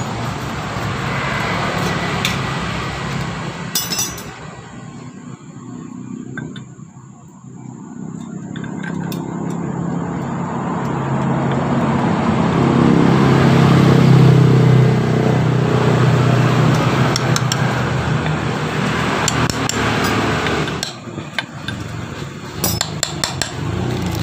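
Small metal parts clinking against an aluminium engine cover as a water pump seal and shaft are pressed in by hand, a few sharp clinks near the start and a quick cluster near the end. An engine runs nearby, swelling to its loudest about halfway through and then fading.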